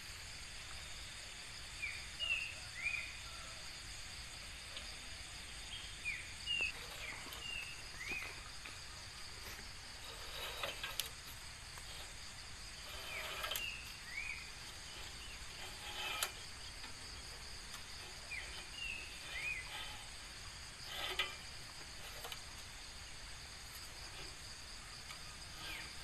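Steady insect chorus with short chirping bird calls now and then, and a few knocks around the middle.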